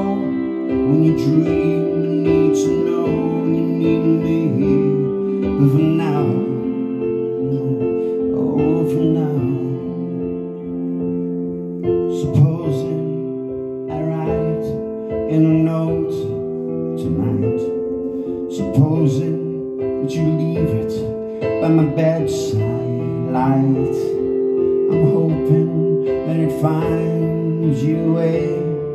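Live song on a Yamaha CP stage piano: held chords with steady note attacks, and a man singing over them.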